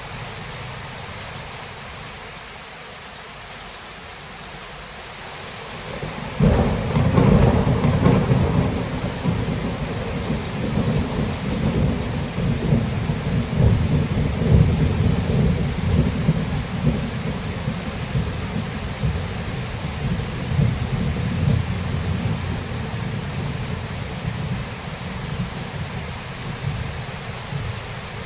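Thunderstorm: steady rain hiss, with a thunderclap that breaks sharply about six seconds in and rolls on as a long, low rumble, slowly fading.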